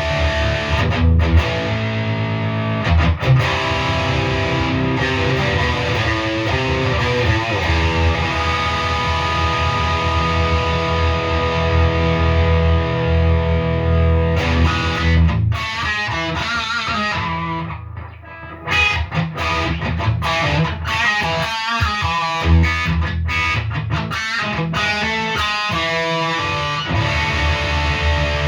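Gibson Les Paul 50s Standard electric guitar with P-90 pickups played with distortion. Held chords ring out first; about halfway through it breaks into a quick run of single notes, and it returns to chords near the end.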